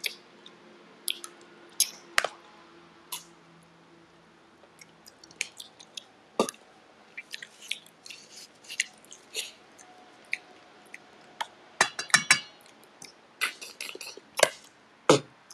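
Someone eating spicy snails by hand: irregular short sucking and slurping sounds at the shells, lip smacks and chewing, busier and louder toward the end as he tries to suck the meat out.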